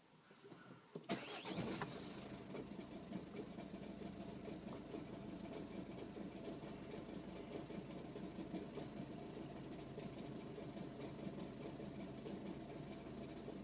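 Ford Focus 1.6 TDCi four-cylinder diesel engine cold-starting after sitting overnight, catching suddenly about a second in, then running steadily with the crazy, terrible noise it makes only on morning starts; the owner does not know its cause.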